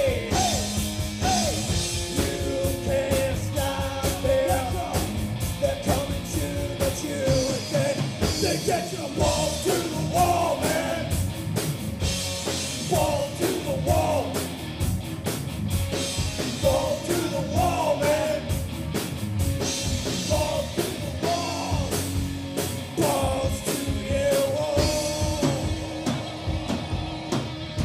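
Live heavy metal band playing: distorted electric guitars, bass guitar and a drum kit keeping a steady beat, with a man singing over it.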